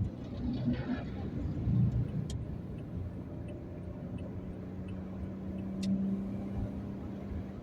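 Steady low rumble of a moving vehicle heard from inside. A steady hum joins about halfway through and stops near the end, and two sharp clicks come through, the first about two seconds in.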